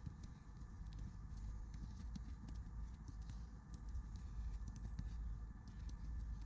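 Irregular light taps and knocks of footballs being kicked and trapped, with players' footsteps on the pitch, over a steady low rumble.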